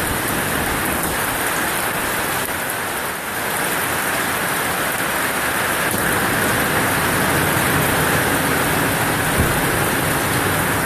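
Heavy rain pouring down in a downpour: a loud, steady hiss.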